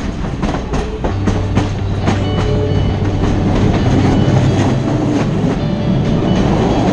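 Passenger train running, its wheels clicking over the rail joints, with the noise of the moving carriage heard from beside an open door.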